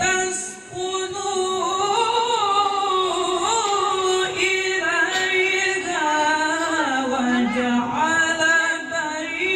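Melodic Qur'an recitation (tilawah) by a male qari: long held notes with ornamented turns, in one long phrase after a short break about half a second in.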